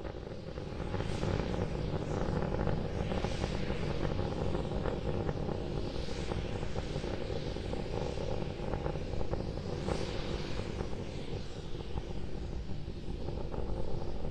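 Starship SN10's Raptor rocket engines heard from the ground during ascent: a steady low rumble, dotted with crackling.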